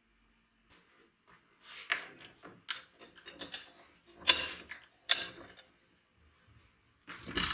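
Workshop handling noises: a run of short scrapes and knocks, with two sharper knocks near the middle, a pause, then more scraping near the end.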